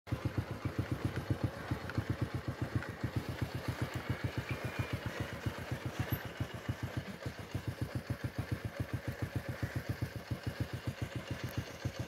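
Motorcycle engine running with a steady low putter of about eight beats a second.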